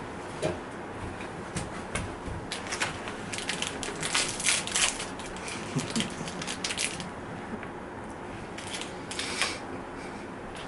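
Plastic snack wrapper crinkling and crackling as it is handled and opened by hand, in dense runs of crackles over several seconds, with a shorter run near the end.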